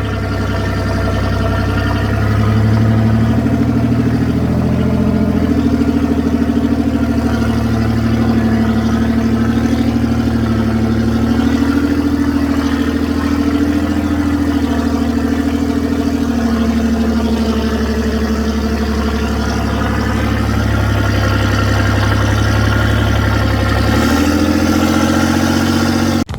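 Off-road 4x4 engine running at low trail speed, its pitch rising and falling gently with the throttle several times.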